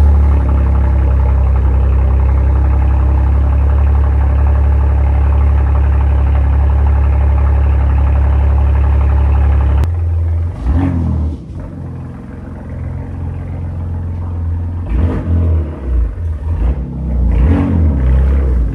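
BMW M4 G82's twin-turbo straight-six, through an aftermarket exhaust with its valves open, running at a loud, steady cold-start idle. About ten seconds in, the idle drops suddenly and gets quieter. Several short throttle blips follow as the car pulls out.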